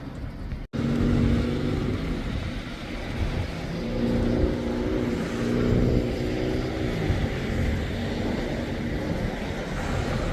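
Motor vehicle engine running with low road rumble; its pitch rises about four seconds in and falls away around seven seconds.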